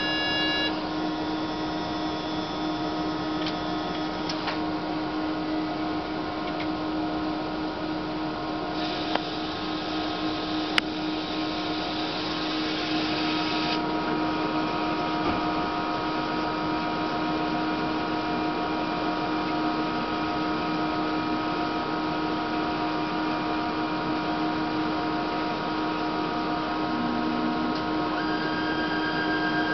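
DEK 02i solder paste stencil printer running through its power-up initialisation: a steady machine hum of fans and drives, with several constant tones that change a second in and again near the end. A hiss runs for about five seconds in the middle, and there are a couple of sharp clicks.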